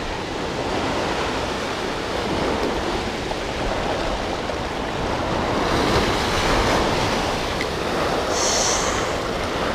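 Ocean surf washing against a rocky shoreline: a steady rushing wash, with a brief hiss about eight seconds in.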